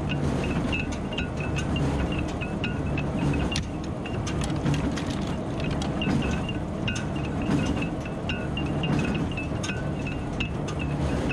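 Welger AP12 small square baler running, driven by a tractor: a steady low rumble with quick, uneven metallic ticking and clinking from the baler's moving parts.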